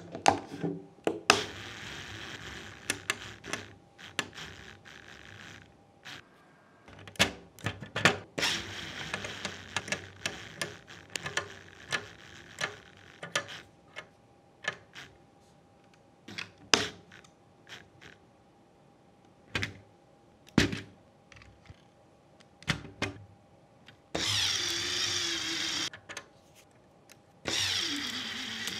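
Long Lego Technic gear train of grey 24-tooth gears driven by an electric Lego motor: the meshing teeth click and knock irregularly, with stretches of rattling whir. The whir gets louder from about 24 seconds in, with a wavering pitch, drops away briefly, then comes back.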